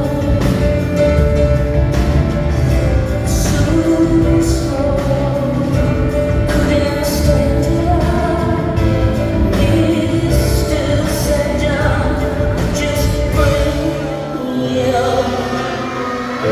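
Live concert music: a female singer with a full band. About 14 seconds in, the heavy low end drops away, leaving a thinner sound.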